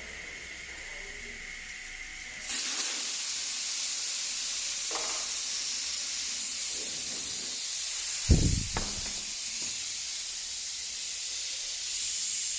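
Air hissing out of a car tyre's valve as the tyre is deflated to break the bead, getting louder about two and a half seconds in and then running steadily. A dull thump about eight seconds in.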